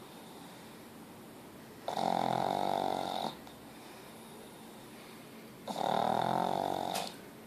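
Pug snoring: two long, pitched snores about four seconds apart, each lasting over a second.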